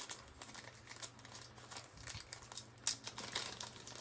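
Handling noise: plastic packaging crinkling with scattered small clicks and one sharper click about three seconds in.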